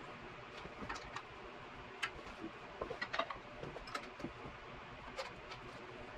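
Faint, irregular light clicks and knocks of tools and a workpiece being handled, about twenty scattered over the few seconds over a low steady background hum.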